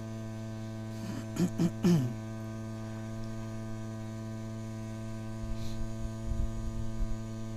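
Steady electrical mains-type hum in the recording, a low buzz with many even overtones that cuts off suddenly at the end. A brief bit of a man's voice about a second and a half in, and low rumbling on the microphone near the end.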